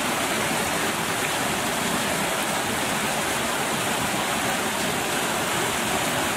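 Water pouring steadily over a low rock edge into a pool: a continuous, even rush of falling water.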